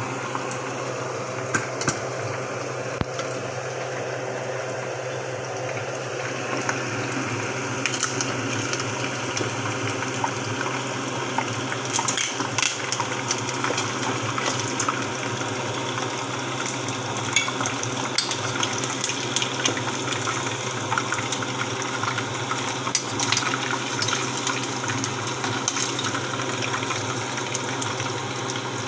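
Sliced leftover hamonado frying in a pan: a steady sizzle with scattered pops and crackles, over a steady low hum.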